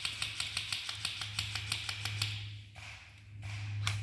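Airsoft gun firing a rapid burst of regular clicking shots, about seven a second, that stops about two and a half seconds in, followed by a few single shots near the end.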